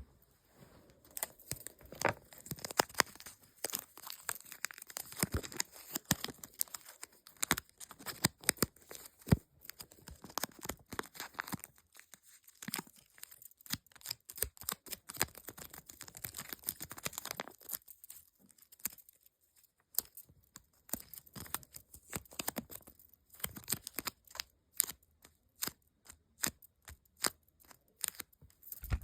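Stickers being peeled off their backing sheet close to the microphone: repeated short, crackly tearing strokes with paper crinkling, pausing briefly twice.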